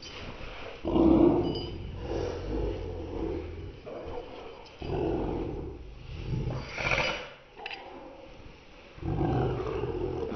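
Two small dogs growling at each other as they scuffle, in about five bursts with short pauses between. The audio is slowed down, so the growls sound deep and drawn out.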